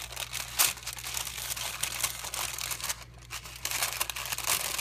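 Parchment paper crinkling and crackling as hands fold and handle a filled food packet, with a louder crackle about half a second in and a short lull just after three seconds, over a faint steady low hum.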